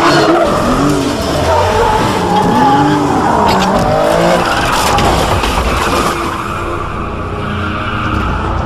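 Vehicle engines revving up and down over and over, with tyres squealing, like a car chase.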